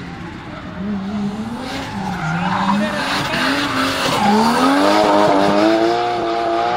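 Nissan Skyline R33 drift car sliding under hard throttle: the engine revs up and down with tyres squealing and scrubbing. The revs dip a couple of seconds in, then climb and get louder through the second half.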